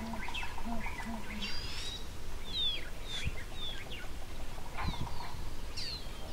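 Several wild birds calling in the bush, a mix of short chirps and quick sliding whistles, over a steady low rumble, with two soft low knocks in the middle.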